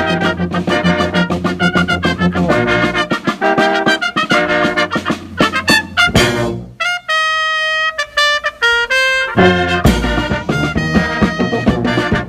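Brass-led instrumental music, with trumpets and trombones playing quick, punchy notes over a steady bass. A held brass note with a few short ones stands more alone about seven seconds in, before the full band comes back in.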